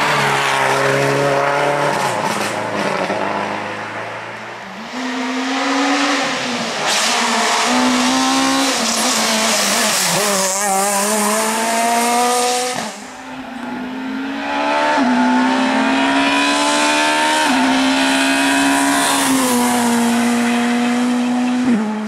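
Rally car engines at high revs on a tarmac stage, the engine note climbing and dropping in pitch as the drivers shift gears through the corners, with a hiss of tyres and exhaust over it.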